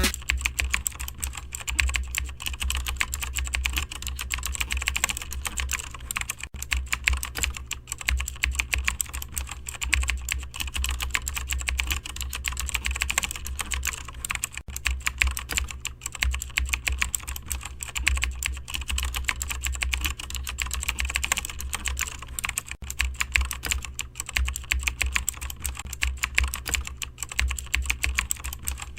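Fast, continuous typing on a computer keyboard, a dense run of keystroke clicks, over a low steady hum.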